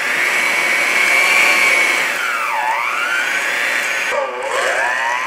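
Handheld electric mixer running, its motor whining as the beaters cream softened butter with brown and white sugar in a glass bowl. The pitch sags twice, about two and a half and four and a half seconds in, then climbs back.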